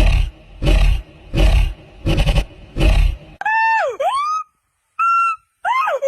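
Five loud, harsh, rough calls about three-quarters of a second apart, then a white-cheeked gibbon's whooping calls: clear whistled notes that dip and rise steeply in pitch, twice broken by a brief pause.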